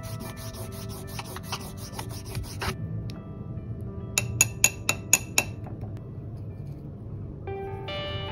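A fine-liner pen scratching quickly back and forth across textured watercolour paper in hatching strokes, stopping just under three seconds in; then a paintbrush clinks about six times against a ceramic water cup as it is rinsed. Soft background music underneath.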